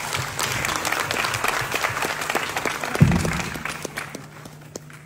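Audience applauding: the clapping swells, holds, and dies away after about four seconds. A single dull thump about three seconds in is the loudest moment.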